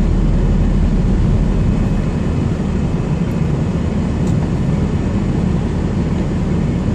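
Heavy truck's diesel engine running with a steady low rumble, heard from inside the cab.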